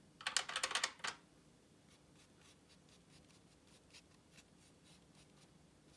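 A watercolour brush scrubbing paint on rough cotton rag paper, making faint irregular scratchy strokes. It is preceded by a louder burst of scratchy rustling lasting under a second, near the start.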